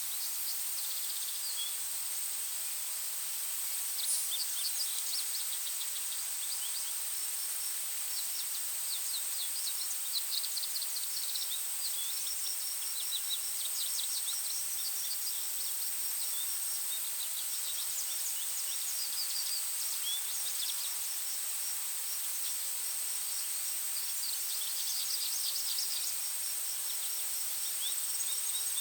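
Forest ambience: birds chirping and trilling in short bouts, over a steady, high-pitched insect drone.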